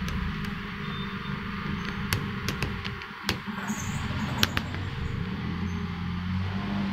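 A steady low mechanical hum, with a handful of sharp clicks around the middle.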